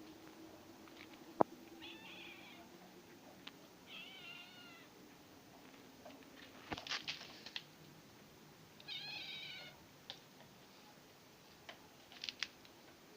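Domestic cat meowing three times, short high-pitched calls with a wavering pitch. A sharp click about a second and a half in is the loudest sound, with clusters of small clicks and taps later.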